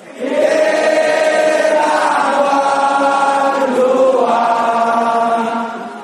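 A stadium crowd of Bali United supporters singing the club anthem in unison: one long phrase of held notes from thousands of voices. It swells in just after the start and falls away near the end.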